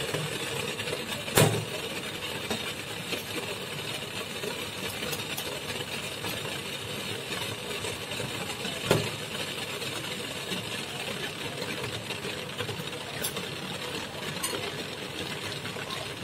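Water heating to a boil in a steel bowl on an induction cooktop: a steady bubbling hiss and hum. Two sharp knocks stand out, about a second and a half in and again about nine seconds in.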